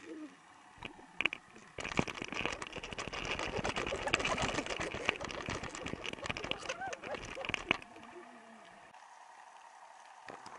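Dense underwater crackling and knocking, from the camera rig and jig moving through the water. It starts about two seconds in, runs for some six seconds, then drops to a faint hiss.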